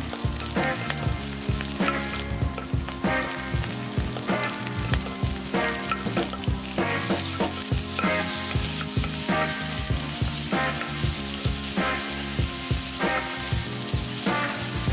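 Green onions and pork sizzling in hot oil in a nonstick wok, stirred with a wooden spatula in repeated scraping strokes against the pan. The sizzle gets louder and brighter about seven seconds in, as the raw pork goes into the oil.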